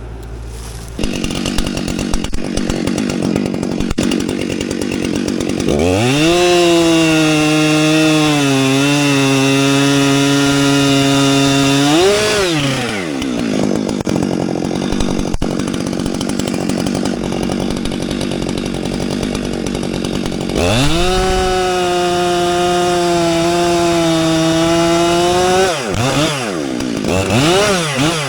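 Two-stroke chainsaw idling, then opened up to full throttle and held for about six seconds as it cuts, dropping back to idle, and held at full throttle again for about five seconds, with quick throttle blips near the end. It is bucking a downed tree into lengths.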